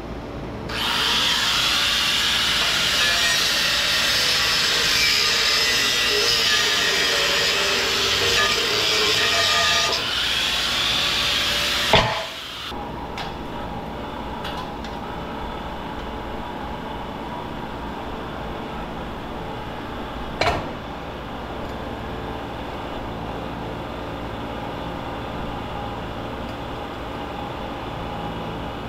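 A loud power tool runs for about eleven seconds and stops with a sharp clack. After that a steady machine hum, with a single knock partway through.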